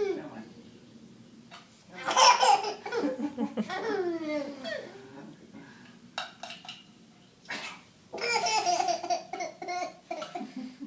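A 10-month-old baby laughing in fits of belly laughter, with falling pitch, each fit set off by a man's mock sneeze: one about two seconds in and another around eight seconds.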